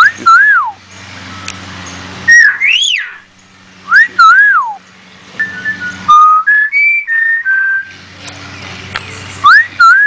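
Hill myna whistling loud swooping notes that rise and fall, in several bouts, with a run of short level notes at stepped pitches in the middle. The whistles mimic a cell phone ringing.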